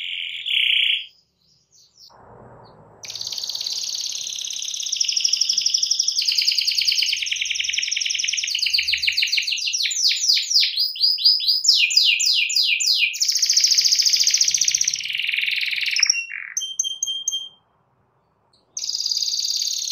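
Yellow domestic canary singing a long song of fast rolling trills and rapidly repeated sweeping notes. The song breaks off about a second in, resumes about two seconds later, and stops briefly again near the end.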